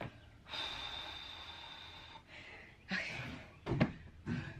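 A long breathy exhale from someone out of breath after heavy lifting, then a few short knocks and thumps near the end as she climbs onto the rubber-matted floor of a cargo van.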